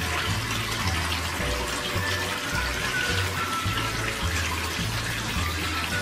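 Small terracotta tabletop fountain running: thin streams of water pour steadily into the basin below, a continuous splashing trickle. Background music with a low bass line plays over it.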